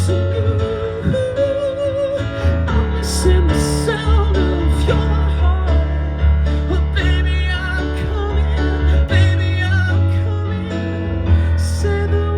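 Live pop ballad performance: guitar over a steady low bass, with a voice singing wavering, drawn-out runs.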